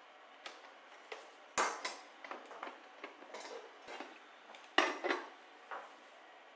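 Handling clatter from a multicooker: a loud knock about one and a half seconds in as its body is set down on the table, light taps and rattles, then a glass lid clinking into place on its nonstick pot near the end.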